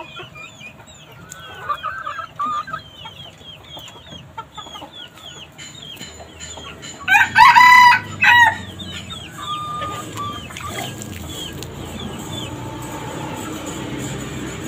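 A rooster crows once, loudly, just past the middle, a call of about a second and a half with a short break near its end. Before it come a few short clucking calls about two seconds in, and quick high chirping runs underneath for much of the time.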